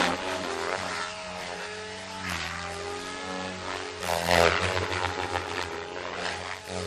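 Goblin 500 electric RC helicopter flying aerobatics: the motor and rotor whine rises and falls in pitch as it manoeuvres, with a louder rush of the rotor blades about four seconds in.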